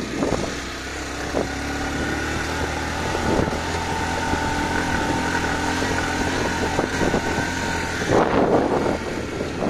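Motorcycle engine running steadily under load, heard from the pillion, as the bike climbs a steep, stony dirt track.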